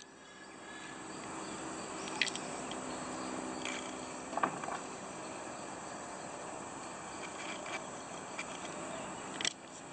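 Steady outdoor insect chorus, fading in over the first second, with a few short clicks scattered through and a sharper click near the end.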